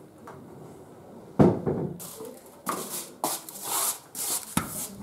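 A sharp knock, then scuffing and rattling as someone steps into shoes on a tiled entryway floor and works a frosted-glass sliding front door open, with a sharp click near the end.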